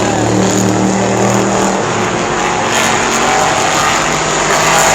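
Short-track race cars running at speed on an oval. A close car's engine holds a steady note, then drops away about two seconds in as it goes past, leaving the noise of the rest of the field.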